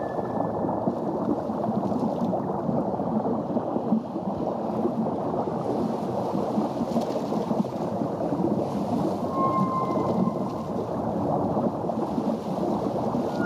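Underwater ambience soundtrack: a steady low rushing noise, with two short, high, whale-like tonal calls overlapping about ten seconds in.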